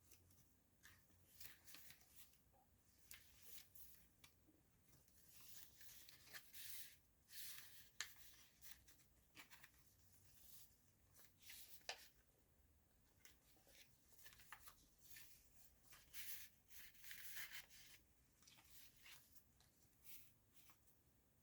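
Faint, irregular rustling of paper pages, tags and cards in a handmade junk journal being handled and turned. Short soft brushes come and go, with a sharper click about eight seconds in and another about twelve seconds in.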